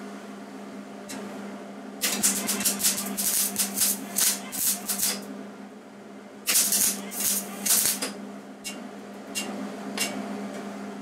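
Wire-feed welder arc crackling and spitting as beads are laid on a stainless steel mug: about three seconds of steady crackle, then a second run of about a second and a half, then a few short taps of the arc near the end. A steady low hum sits underneath.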